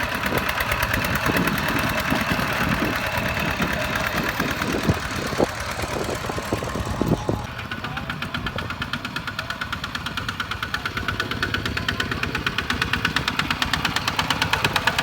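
Farm tractor diesel engine running with a fast, even chugging beat, with a few sharp knocks in the first half. About halfway through it settles into a steadier, more regular chug.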